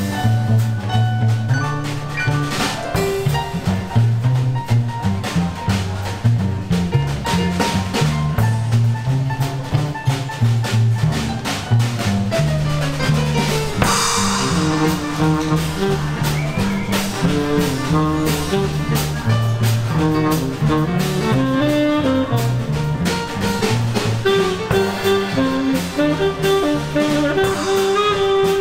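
Live small-band jazz: a plucked double bass walks along under a steady drum-kit beat, with a bright cymbal crash about halfway through. In the second half a tenor saxophone plays held melody notes over the rhythm.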